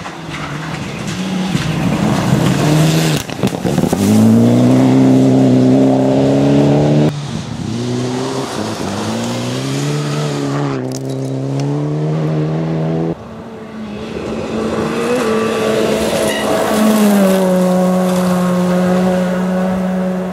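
Rally cars, among them turbocharged Mitsubishi Lancer Evolutions, passing one after another at full throttle on a gravel stage, the engine pitch climbing and dropping at gear changes. The sound breaks off abruptly three times as one car gives way to the next.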